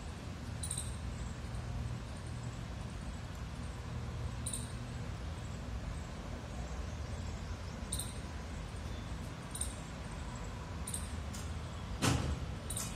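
Steady low outdoor background rumble with faint, sharp high ticks every few seconds and one louder knock about twelve seconds in.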